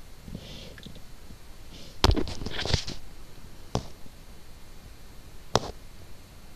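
Handling noise on a phone held up to film: a brief rustle with several sharp clicks about two seconds in, then single sharp knocks near four and five and a half seconds, over a faint hiss.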